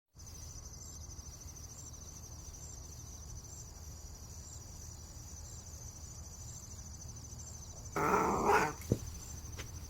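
A pet's single short vocalization about eight seconds in, followed by a sharp click, over a steady low hum and a faint high whine.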